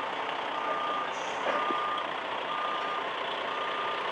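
Reversing alarm beeping steadily, about one short beep a second, over a running engine.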